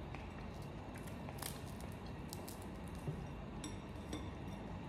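Faint, scattered crunches and clicks of crispy fried chicken being chewed.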